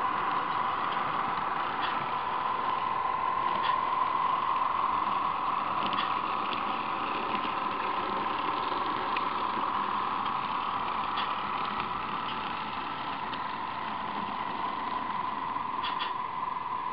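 HO scale model of a GE 44-ton switcher running with a string of freight cars: a steady motor-and-gear whine with the rolling of small wheels on the track, and a few light clicks as wheels pass over rail joints and turnouts.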